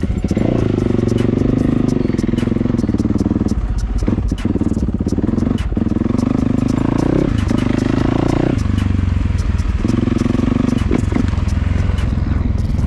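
Motocross bike engine pulling away and accelerating, rising in pitch and dropping off as the throttle is shut briefly several times, with one longer lull about two-thirds of the way through. Heard close up from the rider's onboard camera.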